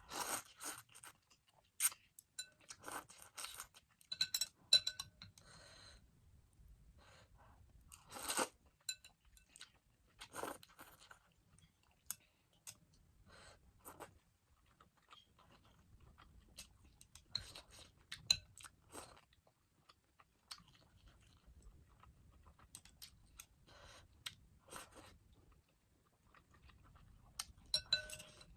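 Close-miked eating: a person chewing ramen noodles and chicken sausage, with wet mouth clicks and short smacks coming in clusters separated by brief pauses.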